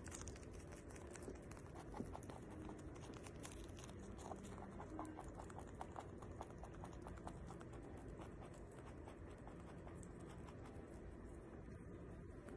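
Holland lop rabbit chewing strawberries: a fast run of faint clicks from its teeth, carrying on throughout.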